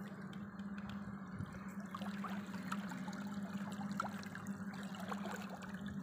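Costway 55 lb 12-volt electric trolling motor running under power with a steady, even low hum, while water trickles and splashes around the boat.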